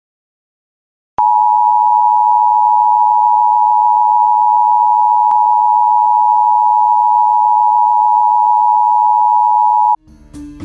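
Bars-and-tone test signal: a single steady reference tone of about 1 kHz, starting about a second in, holding without change, and cutting off suddenly near the end as music starts.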